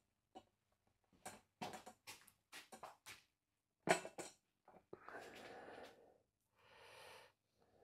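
Light clinks and knocks of metal mower parts being handled in a box, a dozen or so short taps with the sharpest about four seconds in. After that come two longer spells of soft rustling or scraping.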